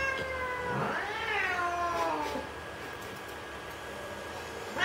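Domestic cat yowling in long, drawn-out calls that rise and then slowly fall in pitch: one tails off about a second in as the next begins, that one fades by about halfway, and another starts at the very end.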